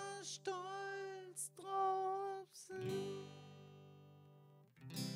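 Acoustic guitar played softly, a few chords ringing in turn, the last one dying away shortly before the next strum near the end.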